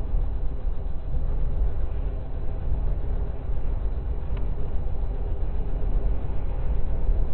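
Freight cars rolling past at close range: a steady low rumble of steel wheels on the rails, with one faint click about four seconds in.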